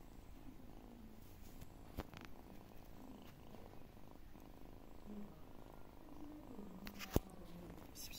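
Kitten purring softly and unevenly as it eats. Two sharp clicks cut in, one about two seconds in and a louder one about seven seconds in.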